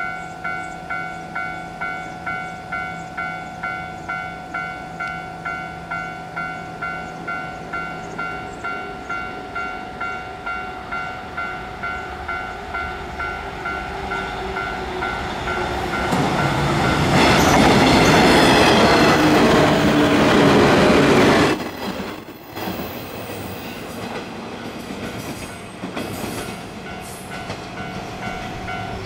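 Japanese level-crossing alarm bell ringing about twice a second as a JR 115 series electric multiple unit approaches and passes close by. The train grows louder from about halfway, is loudest for about four seconds, then drops away sharply, and the crossing bell keeps ringing as it recedes.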